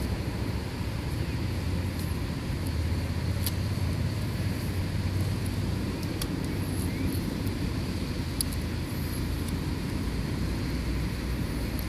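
Steady low rumble of outdoor background noise, with a few faint small clicks from a camera being handled.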